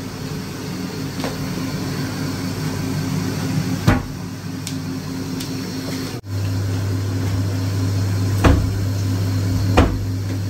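A few sharp knocks over a steady low hum. The hum grows much louder after a sudden break about six seconds in.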